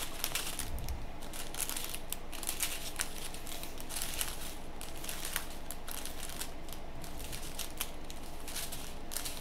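Strips of small plastic bags of diamond-painting drills crinkling and rustling as they are handled and spread out, with many quick little crackles.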